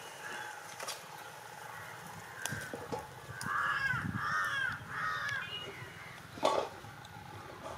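A bird calling three times in quick succession, each call arching up and down in pitch, with a few short knocks, the loudest about three-quarters of the way through.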